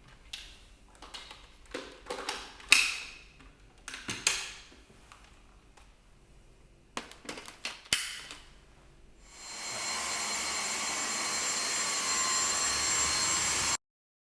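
A Dyson V6 cordless vacuum: a series of clicks and knocks as it is handled and fitted together, then its motor starts about nine seconds in and runs steadily with a high whine, before cutting off abruptly near the end.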